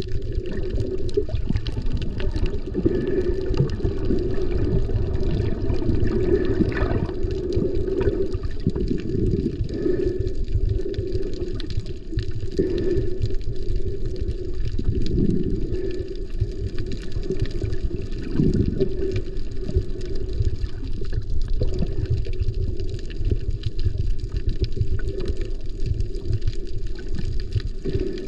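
Sea water heard underwater through an action camera's waterproof housing: a steady, low, muffled rush with irregular surging swells as the water moves around the camera.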